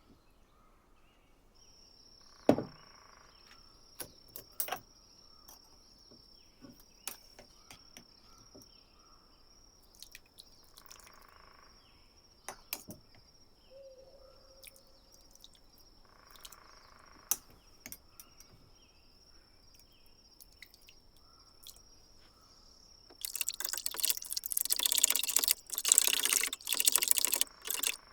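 Hand work on an old axe head at a workbench: scattered knocks and clicks, the loudest about two and a half seconds in, then about five seconds of harsh scraping or brushing near the end. A steady high-pitched whine runs underneath from the first couple of seconds on.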